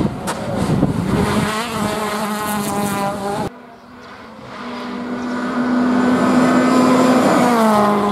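Rally car engines at high revs. The first cuts off abruptly about three and a half seconds in, then another comes up loud, holds a steady high note and drops in pitch near the end.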